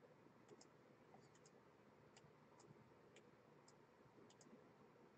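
Near silence with faint computer mouse clicks, about a dozen scattered over a few seconds, some in quick pairs.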